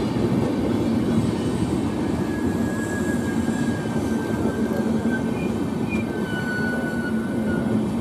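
Passenger train coaches rolling past, a steady rumble of wheels on the rails, with a faint high whine that drifts slightly lower partway through.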